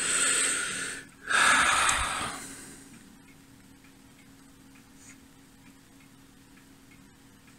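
Two heavy breaths close to the microphone, each about a second long, in the first two and a half seconds. After them a faint steady hum remains.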